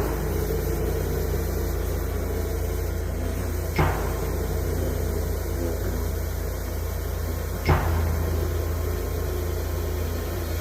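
A workshop power tool's electric motor running with a steady hum, with three sharp knocks about four seconds apart.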